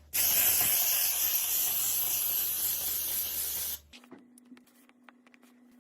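A loud, steady spraying hiss lasting nearly four seconds, which cuts off suddenly and leaves a faint hum with a few small clicks.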